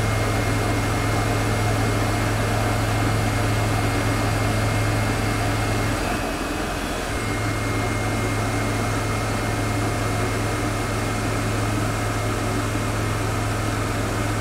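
Tormach CNC lathe running a slow roughing pass with a cubic boron nitride insert on a hardened steel dowel pin: a steady low hum with a thin high whine, both dipping for about a second around six seconds in.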